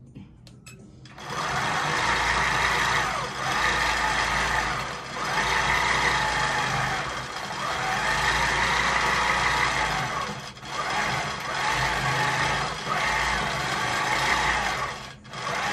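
Q'nique 14+ longarm quilting machine stitching, starting about a second in. It runs with an even hum that dips briefly several times and stops for a moment near the end.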